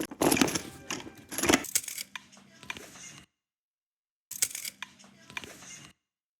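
Rapid clicks and clatters of small hard objects being tapped or dropped, loudest in the first second and a half, then fainter. The sound cuts to dead silence for about a second midway, then another run of lighter clicks follows.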